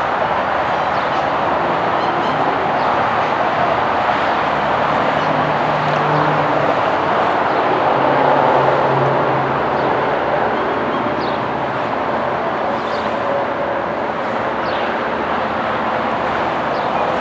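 A steady, even rushing noise that stays at the same level throughout, with no clear separate events in it.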